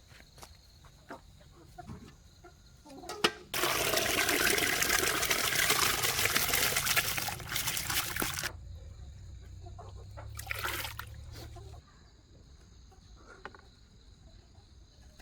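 Water gushing out in a steady stream for about five seconds, starting suddenly, with a shorter splash a couple of seconds later. Chickens cluck faintly.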